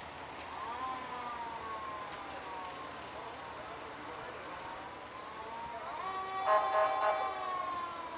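Fire engine siren wailing: it rises quickly, then falls slowly in pitch, and winds up again about six seconds in. Near the end, a few short horn blasts sound over it; they are the loudest part.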